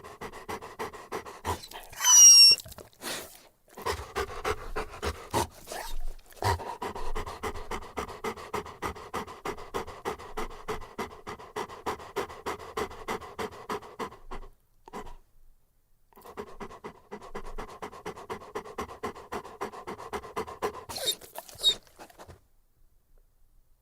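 Saint Bernard dog panting rapidly, about four breaths a second, pausing for a moment partway through. A loud, high whine cuts in about two seconds in, and another shorter, high whine comes near the end.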